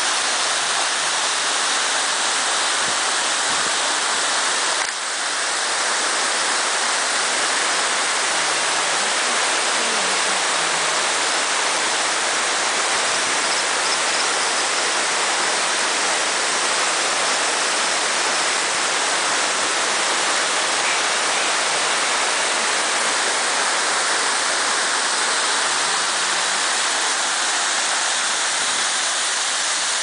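Steady rush of water from a rocky stream cascading over boulders below a waterfall, with one short click and dip in level about five seconds in.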